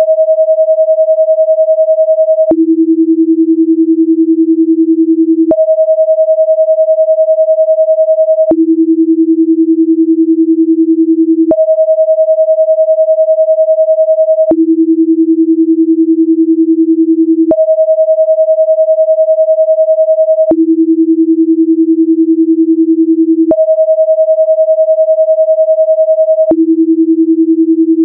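Synthetic binaural-beat sine tones, with a 10 Hz difference between the left and right channels, meant to drive a 10 Hz alpha-rhythm brain response. The steady tone switches every three seconds between a higher pitch and one about an octave lower, with a faint click at each change.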